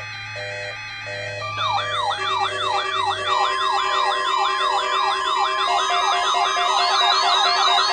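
Electronic siren tones used as a mock weather-radio warning alarm, starting about a second and a half in. Several layered tones sweep rapidly up and down over steady held tones. The sweeps quicken near the end and the alarm stays loud.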